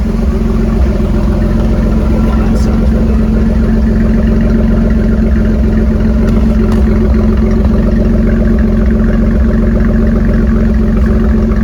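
1982 Chevrolet C10 pickup engine running steadily through its custom exhaust on a freshly fitted Rochester 2SE carburetor, untuned and running smoothly right out of the box.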